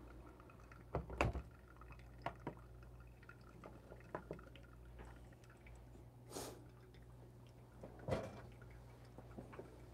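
Coffee dripping from a pour-over cone into a glass server as the brew drains through a fine grind, faint, with a few short clicks and taps scattered through.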